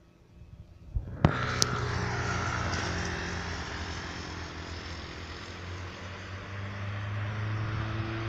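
Rumble and hiss of a moving train, with a low steady hum. It cuts in suddenly with a sharp click about a second in.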